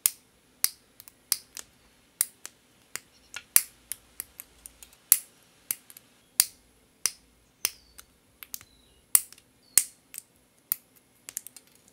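Metal cuticle nippers snipping clear plastic nail tips: a run of sharp snips, about two a second, irregularly spaced.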